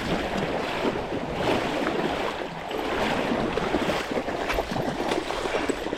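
Steady rush of creek water with irregular splashing.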